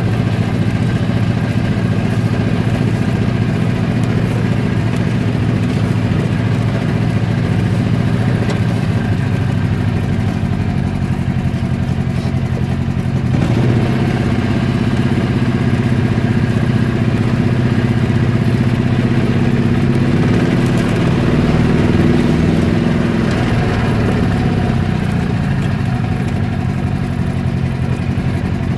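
An engine running steadily, its pitch shifting about halfway through.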